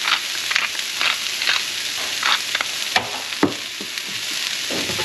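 Peas and diced carrots sizzling in a hot skillet: a steady hiss with scattered crackles, and a few duller knocks a few seconds in.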